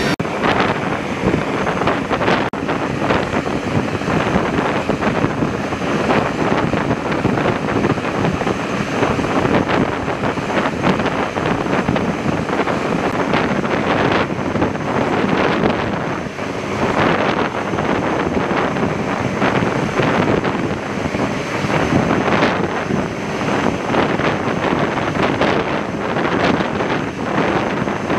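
Loud, steady rushing noise of aircraft engines running on the flight line, mixed with wind buffeting the microphone.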